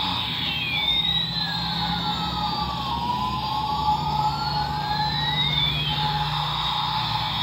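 Battery-operated toy military helicopter playing its electronic siren-like sound effect. A wailing tone sweeps down and back up once over about five seconds, over a steady electronic drone.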